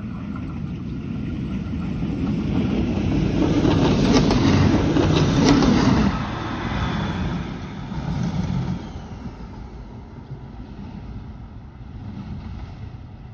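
Niederbarnimer Eisenbahn diesel railcar passing over a level crossing: its engine and wheel noise build up to the loudest point about four to six seconds in, with a few sharp wheel clicks over the rails, then drop away and fade as it runs on.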